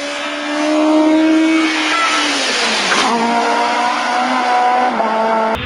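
Rally car engine running at high revs. Its note climbs a little, then drops about two seconds in under a rush of tyre noise, then holds steady at a new pitch. Near the end the sound cuts abruptly to a different engine note.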